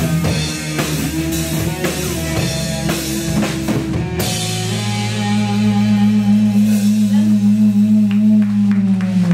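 Live rock band of drums, electric guitar, bass and acoustic guitar playing the close of a song: drum strikes under the guitars, then about four seconds in the band holds a final pulsing chord that cuts off near the end.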